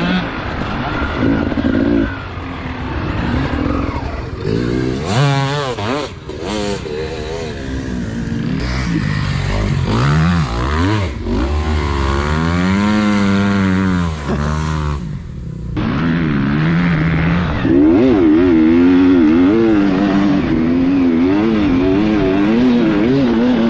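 Dirt bike engines revving, their pitch rising and falling quickly with the throttle. After an abrupt cut about two-thirds of the way in, an on-board Beta enduro motorcycle engine is heard, its revs rising and falling as it is ridden.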